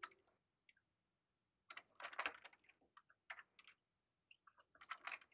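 Faint typing on a computer keyboard: a few quick keystrokes in three short clusters, about two, three and a half and five seconds in.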